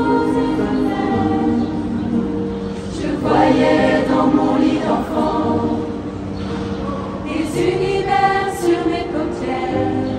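Mixed choir of men and women singing slow, long-held chords, swelling loudest a few seconds in.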